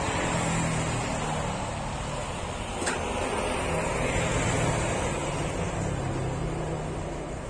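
Steady roar of road traffic, with motorcycle engines passing close by, and a single brief click about three seconds in.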